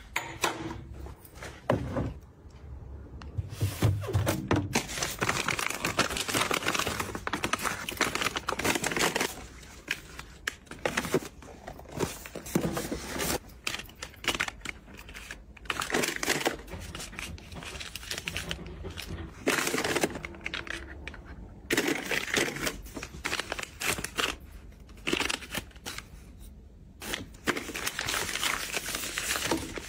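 A run of close-up handling noises: crinkling and rustling packaging, with sharp clicks and taps of objects being fitted together and set down, coming in separate stretches a few seconds long.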